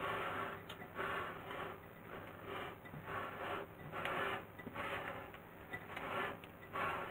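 A spatula scraping and folding thick cocoa batter against the side of a glass mixing bowl, in repeated rasping strokes about one and a half per second.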